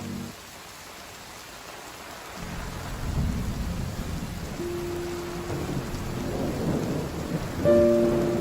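Steady rain with a low rumble of thunder that rolls in about two seconds in and keeps going.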